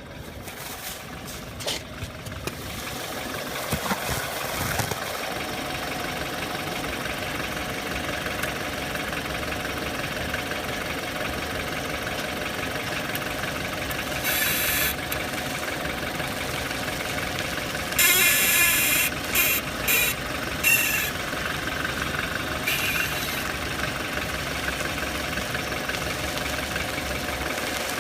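BMW 5 Series (F10) running, with a few loud, sharp creaks from the right-hand suspension about halfway and two-thirds of the way through, the sign of a worn ball joint.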